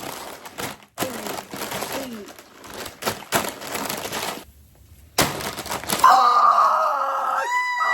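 Crinkly plastic snack bag being handled and torn open, a dense crackling that comes in several spurts, then a drawn-out vocal exclamation about six seconds in.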